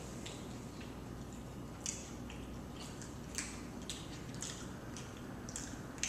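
A person chewing food close to the microphone: irregular wet mouth clicks and smacks, the loudest near the end, over a steady low hum.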